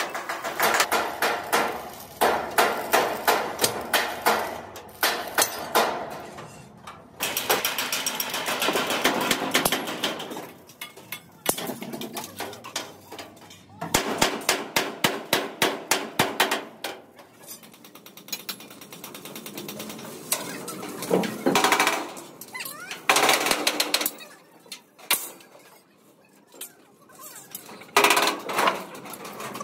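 Fast, regular hammer blows on metal, about four strikes a second, in runs of several seconds broken by short pauses: bodywork being beaten out on an accident-damaged bus.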